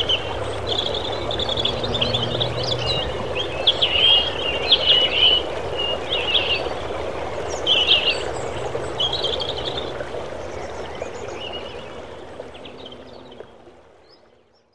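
Babbling brook with small birds chirping over it, fading out to silence over the last few seconds.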